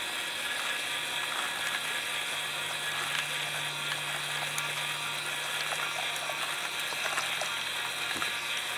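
Small 12-volt gearbox motor driving a homemade model conveyor belt slowly, a steady mechanical whir with ratchety gear noise and a low hum, while loose dirt pours onto the moving belt with small scattered ticks. The low hum fades out near the end.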